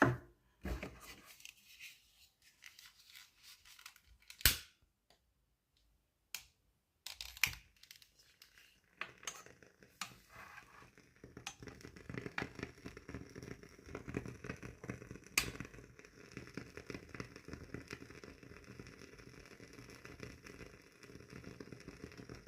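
WoodWick candle's wooden wick crackling as it burns. There are a few scattered clicks, a sharp one about four seconds in, and then a dense, steady run of small pops and crackles from about nine seconds in.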